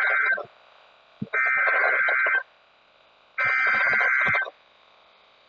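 Emergency Alert System SAME header: harsh, warbling digital data bursts of about a second each, the end of one and then two more spaced about a second apart. These are the coded bursts that open an EAS alert, here a tornado warning.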